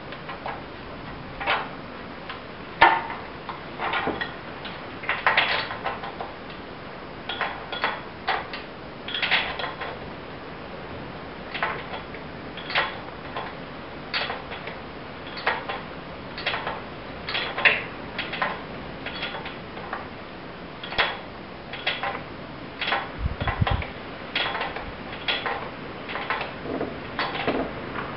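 Irregular metallic clicks and clinks of hand tools being worked on a Citroën Dyane engine, about one or two a second, with a single dull thump near the end.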